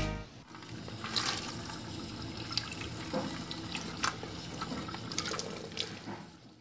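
Running water with scattered small splashes and drips, fading out near the end.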